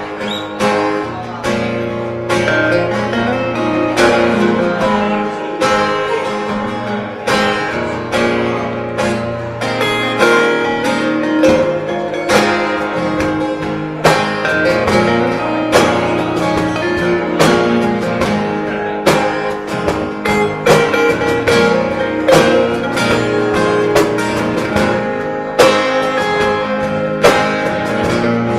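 Live band music: a guitar-led instrumental introduction, with plucked and strummed guitar over sustained low notes.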